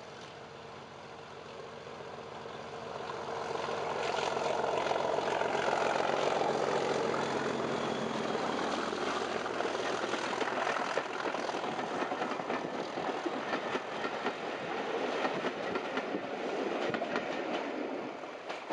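Class 37 diesel locomotive's English Electric V12 engine running as it comes up and passes, loudest a few seconds in. It is followed by the rattle and rhythmic clickety-clack of the carriage wheels going by, which fades near the end.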